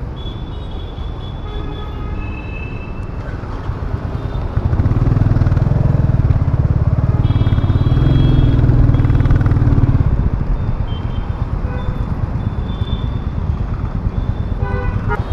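Royal Enfield Classic 350's single-cylinder engine running under way, with wind and road noise. The engine rumble grows clearly louder for about five seconds in the middle, then settles back.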